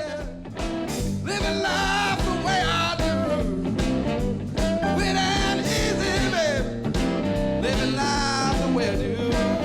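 Outro music: a rock-style song with singing over guitar, bass and a steady drum beat.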